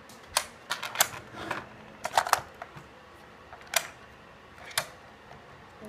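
Plastic toy playset pieces clicking and tapping as they are handled and fitted together: a scattered series of sharp clicks, some in quick clusters.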